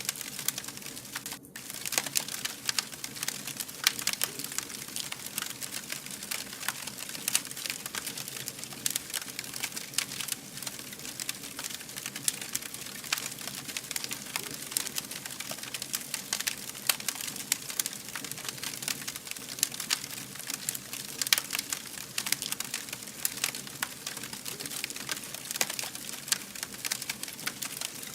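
Burning fire crackling steadily, with a dense, irregular stream of sharp snaps over a soft hiss.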